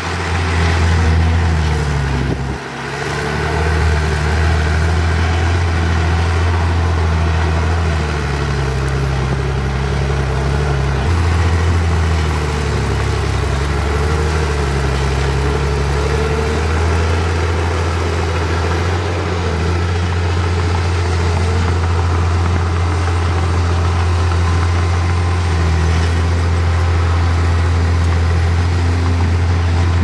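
Heavy diesel engine of earthmoving machinery working, with a deep steady hum whose pitch sinks and rises as the load changes. It dips briefly a couple of seconds in.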